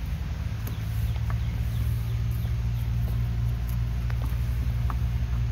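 Steady low mechanical hum from a nearby running machine, with a few faint light clicks on top.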